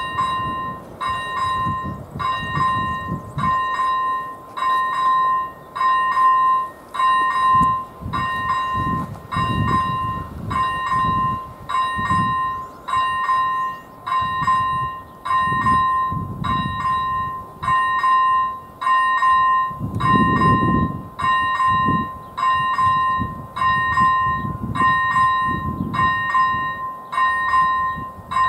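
Electronic level-crossing bell (AŽD ZV-01 on AŽD 97 warning signals) ringing, one clear ringing strike about once a second: the crossing warning is active, signalling an approaching train.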